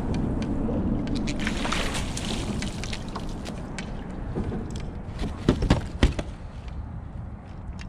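A hooked sheepshead thrashing and splashing at the water's surface as it is scooped up in a landing net, with water sloshing and running off the net. Near the end there are a few sharp knocks, the loudest sounds, as the net with the fish comes aboard the kayak.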